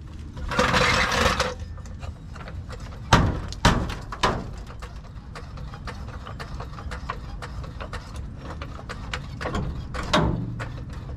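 Handling noises around a propped-up race car: a brief rustle, then three sharp knocks about half a second apart, followed by a run of light clicks and rattles with one more knock near the end.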